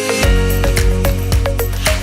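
Music: sustained pitched notes over a heavy bass that comes in just after the start, with a steady percussive beat.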